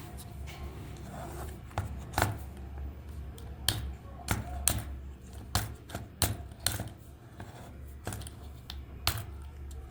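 Irregular sharp clicks and taps of small hard objects being handled, over a low steady hum.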